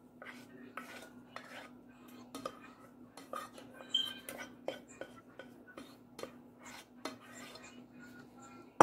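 A utensil scraping and knocking against the inside of an upturned stainless-steel pot in irregular light clicks and scrapes, as the last of the white sauce is scraped out.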